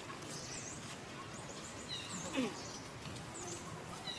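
Outdoor ambience with a bird repeating a short, high call every second or so, and a brief lower falling call about two seconds in.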